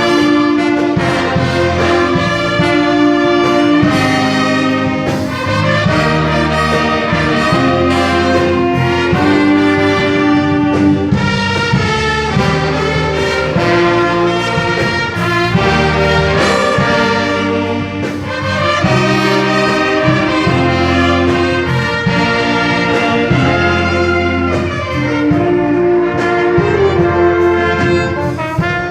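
An orchestra with a prominent brass section, trumpets and trombones among it, playing a hymn tune with sustained chords.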